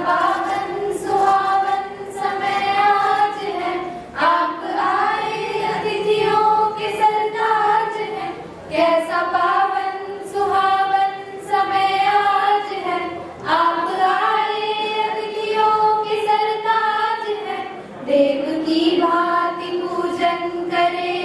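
A group of schoolgirls singing a welcome song (swagatam geet) together into one microphone, with no instruments heard. The song moves in long held phrases with a short break for breath about every four to five seconds.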